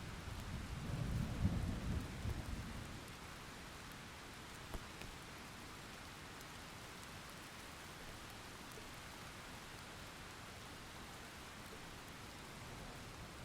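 Thunderstorm: a deep roll of thunder rumbles for the first two or three seconds, then steady rain falls with a faint crack just under five seconds in.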